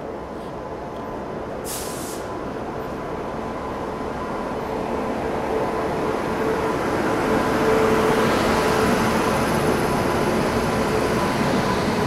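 An electric passenger locomotive and its coaches rolling slowly into the platform. The rumble of wheels on rail grows louder as the locomotive comes alongside and the coaches pass, with a steady hum over it and a brief hiss about two seconds in.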